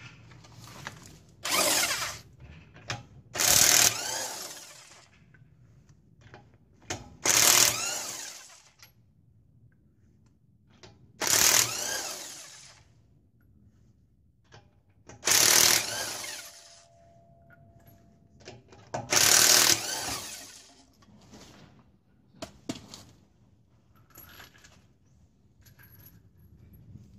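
Corded Emerson electric impact wrench hammering on a car's wheel lug nuts to loosen them. It fires in six bursts of about a second each, several seconds apart, and each burst winds down briefly as the wrench spins, with small clicks between.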